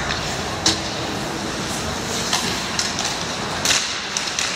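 Ice hockey play on the rink: skate blades scraping the ice under a steady hiss, with a string of sharp clacks from sticks and puck, the loudest about three-quarters of the way through.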